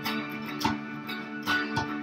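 Live acoustic jam: an acoustic guitar strummed and an electric guitar played together over held chords, with a few sharp hand strokes on a djembe.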